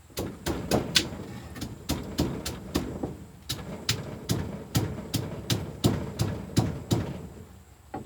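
Pestle pounding in a mortar, about three uneven strikes a second, while a spicy Isan salad is being pounded. The strikes stop about a second before the end.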